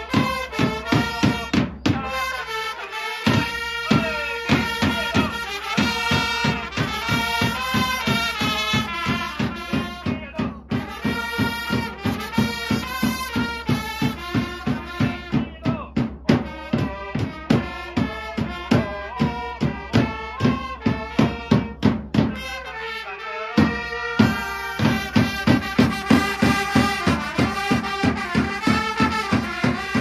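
A Japanese pro-baseball cheering squad's trumpet section playing a fanfare-style cheer song in unison over a steady drum beat, with shouted call-and-response chants of "oh-oh-oh" and "oi! oi!". The beat drops out briefly twice.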